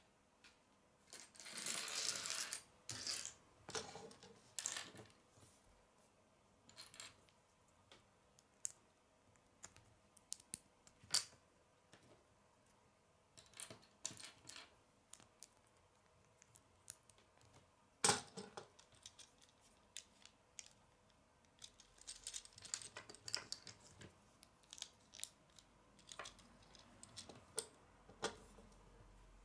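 Lego bricks clicking and tapping on a wooden tabletop as pieces are picked up, set down and pressed together: scattered sharp clicks, with a denser clatter about two seconds in and the loudest single click about eighteen seconds in.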